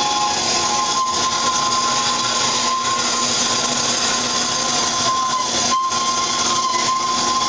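Industrial metal-cutting bandsaw running through a thick metal block: a steady, loud grinding hiss with an even high whine over it.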